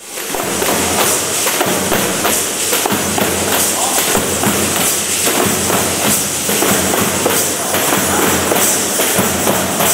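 Percussion band playing pandeiros (Brazilian tambourines) and drums together: a dense, continuous run of jingle shakes and drum hits.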